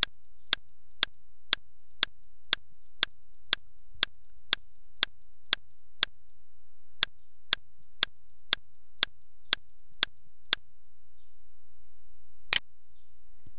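Regular clicks of a computer mouse button or key, about two a second for some ten seconds, stepping the trading chart forward bar by bar; one more click comes near the end.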